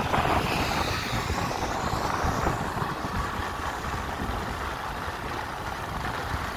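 Steady engine and road noise from a moving vehicle, with wind buffeting the microphone in an irregular low rumble. A faint whine rises and falls in the first couple of seconds.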